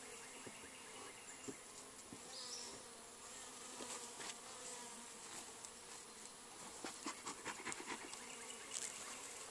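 Honeybees humming over an open hive, a faint steady buzz, with scattered light knocks and clicks, more of them near the end.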